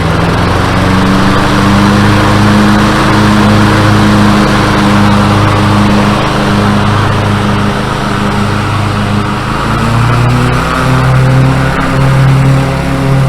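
Riding lawn mower's small engine running steadily, picking up speed in the first second and changing pitch again about ten seconds in.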